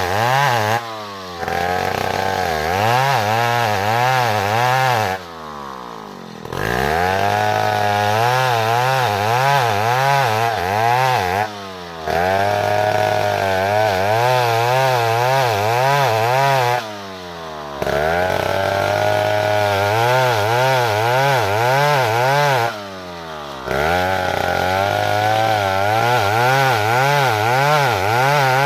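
Chainsaw engine running at high throttle while cutting wood, its pitch wavering under load. It eases off briefly about every five to six seconds, once for longer, then comes back up.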